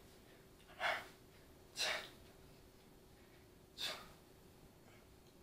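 A man's short, forceful exhalations, one with each rep of a bodyweight ab exercise: three sharp breaths, the first two about a second apart, the third two seconds later.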